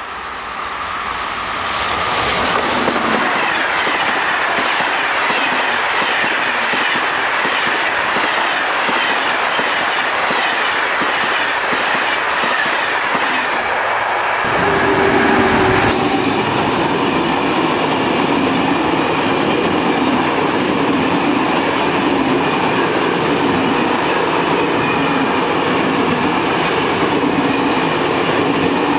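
SNCF Téoz passenger train hauled by an electric locomotive, passing at speed: a loud, steady rush of wheels on the rails. About halfway through a deeper rumble joins in as coaches roll by close.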